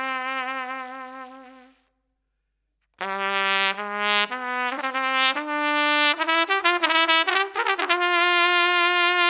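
Trumpet music: a held, wavering note fades away, then after about a second of silence a new trumpet melody of stepped notes starts about three seconds in.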